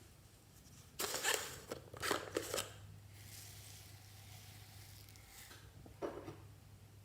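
Fluffy slime being mixed and squished by hand: three short sticky, crackling squelches, about a second in, at two seconds, and near the end, over a faint steady hum.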